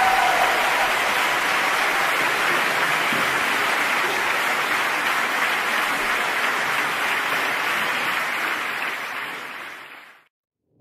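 Applause from many hands, steady and dense, fading out and stopping about ten seconds in.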